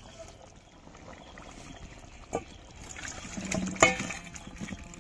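Fish curry gravy trickling and sloshing as it is handled, with a sharp click about two and a half seconds in and a louder one just before four seconds.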